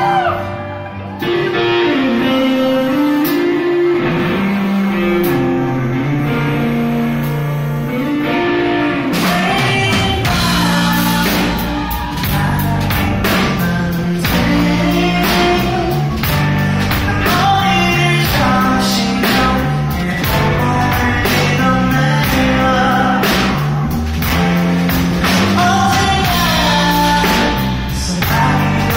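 A rock band playing live, heard from the audience. Guitar and bass play quietly at first. About nine seconds in the drums come in and the full band plays, with a male lead singer singing over it.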